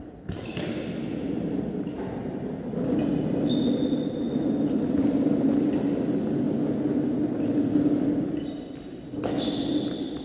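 Badminton rally: a string of sharp racket hits on the shuttlecock at irregular intervals, with short high squeaks of shoes on the court floor, over a steady low hum in a large echoing hall.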